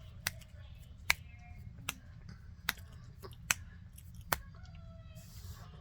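Chunks of raw cornstarch being chewed: six sharp, crisp crunches at a steady pace of a little more than one a second, over a low steady hum.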